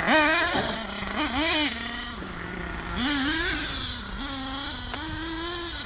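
HPI Savage X 4.6 nitro RC monster truck's big-block two-stroke glow engine revving, its pitch rising and falling again and again, with brief steady holds on the throttle.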